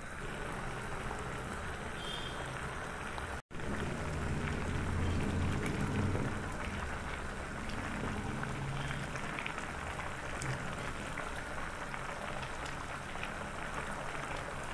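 A pot of basmati rice boiling in water, a steady bubbling, with a brief break about three and a half seconds in.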